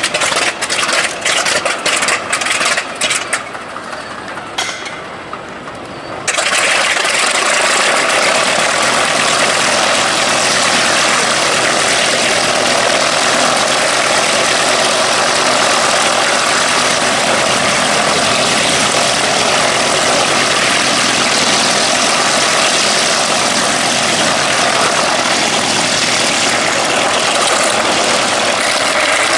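Focke-Wulf 190's radial engine just after start-up, running rough with irregular popping and missing for the first few seconds. About six seconds in it picks up suddenly to a loud, steady run.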